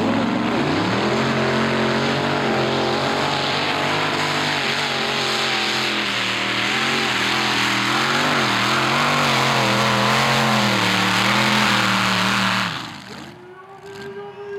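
Modified pulling tractor's supercharged engine revving up at the launch, then running flat out under full load as it drags the weight sled, its pitch wavering as the revs rise and fall. The engine sound cuts off suddenly near the end as the run ends.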